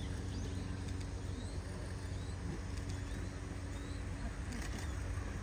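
Steady low background hum with a few faint, scattered bird chirps; no single sound stands out.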